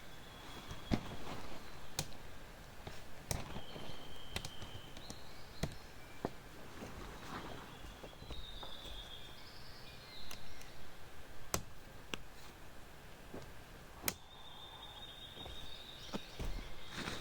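Outdoor campsite ambience: scattered sharp clicks and knocks at irregular intervals over a low noisy background, with a few short high chirps.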